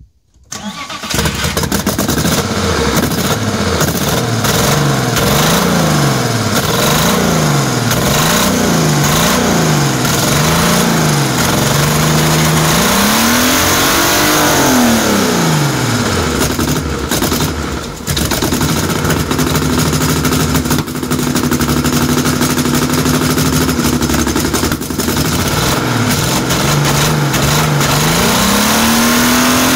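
BMW E36 engine converted to rotary valves, with its intake manifold removed, starting about half a second in and then being revved. It is blipped up and down about six times in quick succession, revved high once in the middle, held at a steady raised speed for several seconds, and revved high again near the end.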